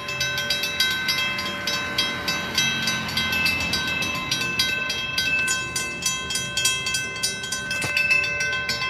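Railroad crossing bell ringing with rapid, evenly spaced strikes while the crossing signals are active, warning of an approaching train.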